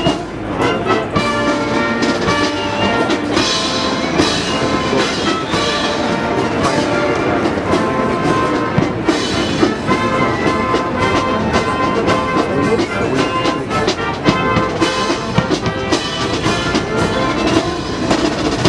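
Marine Corps band playing: trumpets, horns, trombones, saxophone and sousaphone over a bass drum and snare drum.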